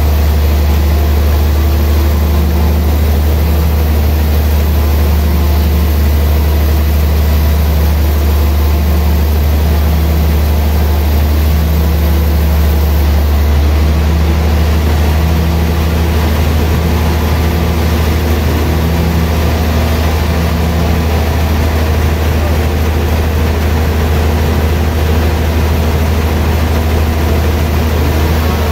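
Large log band sawmill running with a loud, steady low drone from its drive and blade as it cuts a slab from a big log; a fainter pulsing hum comes and goes until about two-thirds through.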